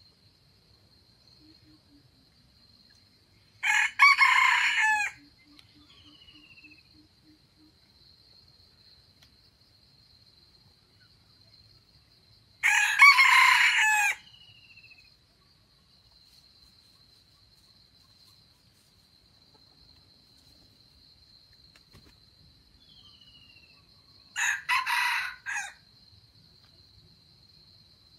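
Red junglefowl rooster crowing three times, each crow short, about a second long, with long gaps between them. A steady high-pitched insect drone runs underneath, with a few faint bird chirps.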